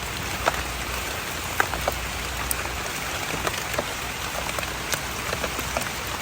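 Heavy rain falling steadily, with many sharp taps of single drops scattered through the hiss.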